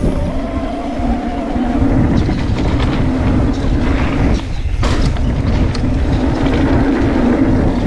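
Mountain bike rolling over a dirt trail: a steady rumble of tyres on the ground, with the bike rattling.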